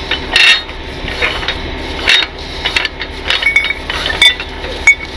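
Hand-wound strap winch on a tow truck's wheel lift: irregular metal clicks and knocks from the spool and its ratchet as the yellow tie-down strap is wound back onto it, over a steady low hum.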